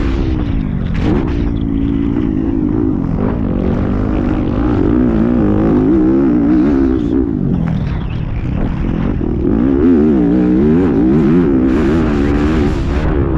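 Motocross bike engine revving on the track, its pitch rising and falling again and again as the throttle is opened and closed.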